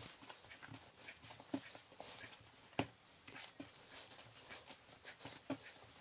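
Hands kneading and folding a soft dough on a floured countertop: faint, irregular soft pats and presses, with one sharp click near the middle.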